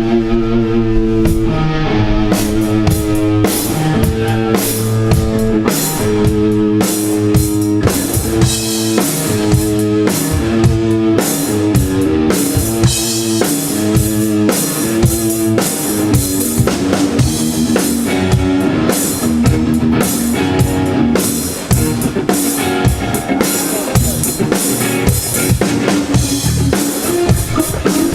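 Metal band playing live without vocals: a driving riff on electric guitars and bass over a drum kit with steady kick and snare hits, stopping near the end.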